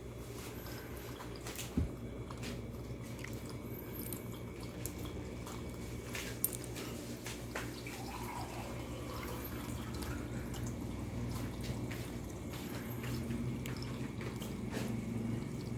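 Aquarium air pump running with a steady low hum, its air bubbling up and splashing at the water surface of the fish tank; the pump is working again after a home repair with silicone sealant. Two sharp clicks stand out, about 2 and 6 seconds in.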